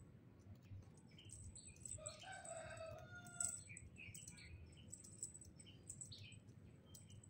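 A rooster crowing faintly once, about two seconds in, with small birds chirping around it.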